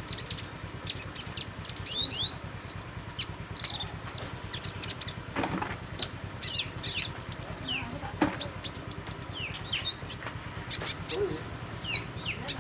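Purple-throated sunbird chirping: a quick run of thin, high chirps and short downward-slurred notes, some in fast clusters, over a faint steady low hum.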